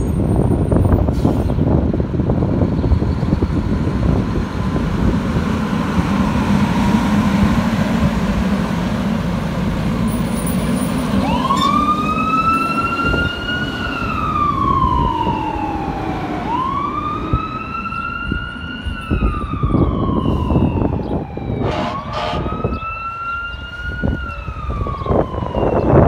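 A fire engine's diesel engine rumbles as it pulls away. About halfway through, its siren starts wailing: three slow cycles, each rising quickly and then falling slowly.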